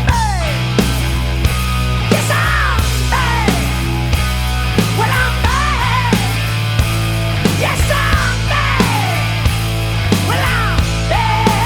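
Loud rock music with a steady beat and sliding high melodic lines over a sustained bass.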